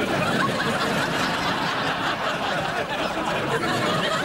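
Studio audience laughing, a steady sustained wave of crowd laughter.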